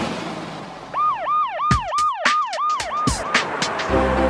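Cartoon siren sound effect: a rapid rising-and-falling wail, about three to four whoops a second for a little over two seconds, mixed with sharp clicks. Music comes in near the end.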